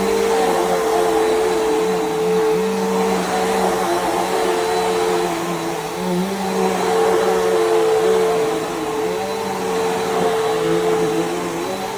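Bissell PowerGroom bagless upright vacuum cleaner running, a steady motor whine whose level and pitch dip slightly every few seconds.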